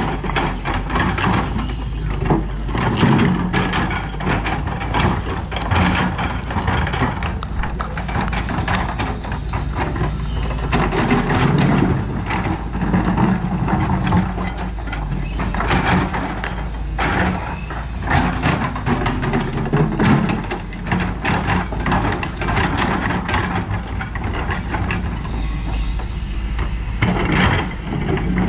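Doosan DX225LCA excavator working, its diesel engine running steadily with frequent clanks and knocks throughout.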